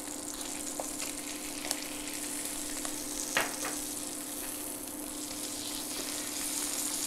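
A kokanee fillet frying in butter and garlic in a stainless steel pan, with a steady sizzle. A silicone spatula scrapes and taps the pan a few times as the fillet is lifted and flipped, the sharpest click about halfway through. A steady low hum runs underneath.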